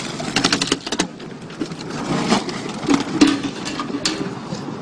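Car body clattering and scraping as several people heave an overturned car back onto its wheels. A burst of rapid rattling knocks comes in the first second, followed by irregular clunks and scraping.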